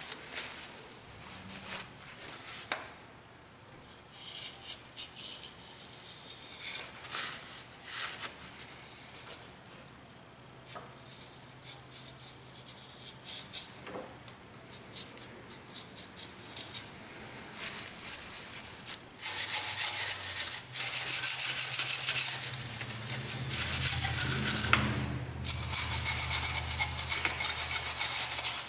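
Faint scraping and rubbing as a scraper and rag clean the engine block deck. About two-thirds in, an aerosol can of brake parts cleaner starts spraying into the cylinder water jackets in long hissing bursts with short breaks, to loosen the oily, sludgy coolant deposits.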